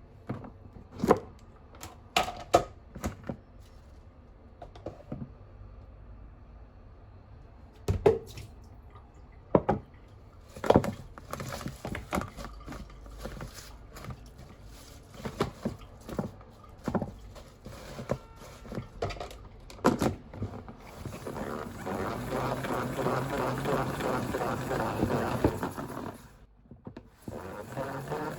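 Everyday handling sounds: a series of sharp knocks and clicks of objects being picked up and set down. Later a denser, steady crackling rattle sets in, which breaks off suddenly and comes back near the end.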